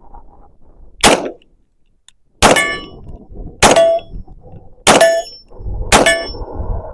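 Five pistol shots from a Hi-Point JHP .45 ACP, about a second and a quarter apart; after each of the last four, the struck steel target plate rings with a metallic clang.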